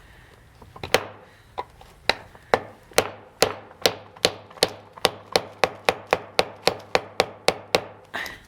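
Soft-blow hammer tapping the handle of a screwdriver set in a damaged slotted screw, sharp light knocks, a few scattered at first, then steady and speeding up from about two to about four a second. The taps while turning work loose a mangled flathead screw stuck in an old wooden chair's hinge.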